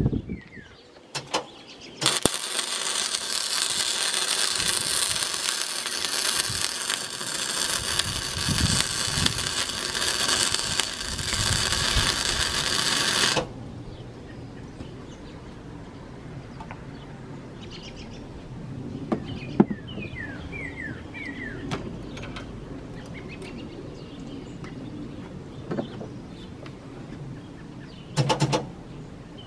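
MIG welder arc running steadily for about eleven seconds as steel braces are welded onto a hydraulic pump bracket, then cutting off; a short tack weld sounds near the end. Small birds chirp in between.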